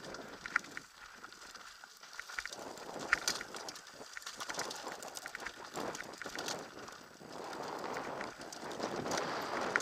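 Downhill mountain bike rolling fast over a rocky dirt trail, heard from a helmet camera: an even rushing of tyres and air that rises and falls with speed, with scattered sharp clicks and rattles from the bike over stones and roots.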